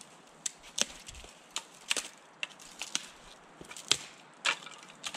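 Dry dead sticks and twigs cracking and snapping as they are gathered by hand: about ten sharp cracks at irregular intervals, the loudest near the end.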